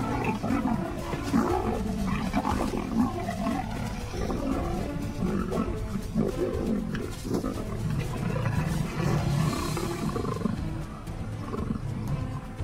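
Leopards growling and snarling as they fight over territory.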